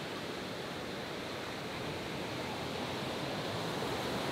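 Distant roar of four F-16 Fighting Falcon jets, a steady rushing noise that slowly swells toward the end.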